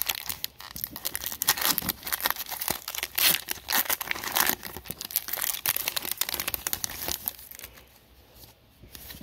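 Foil wrapper of a Magic: The Gathering set booster pack being torn open and crinkled in the hands, a dense crackling rustle that dies down near the end.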